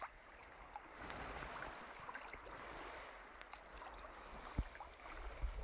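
Shallow sea water lapping and splashing close to the microphone, with scattered small clicks and a low rumble underneath.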